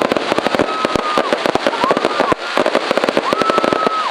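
A fireworks display going off: dense, rapid crackling bangs. A held high-pitched tone rises in, holds briefly and falls away three times over the top.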